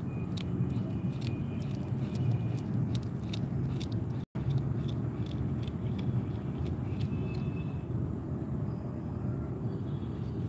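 A steady low rumble of background noise with scattered faint clicks, cut by a brief dropout a little over four seconds in.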